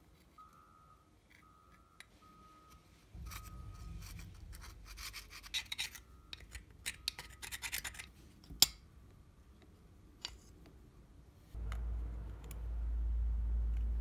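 Several short, evenly spaced electronic beeps, then brisk scratching and scraping over a low hum, one sharp click, and a strong low steady hum starting near the end.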